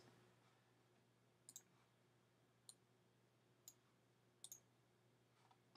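A few faint computer mouse clicks about a second apart, over near-silent room tone.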